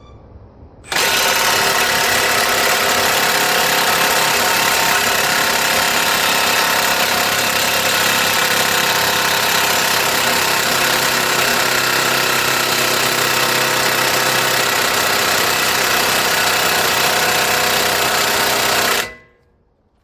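Impact wrench set to full torque, hammering continuously for about eighteen seconds. It starts and stops abruptly.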